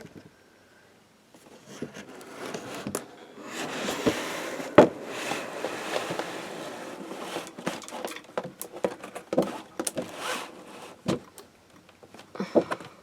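Rustling, scraping and crackling of plastic being handled, with many sharp clicks and knocks, starting about a second in.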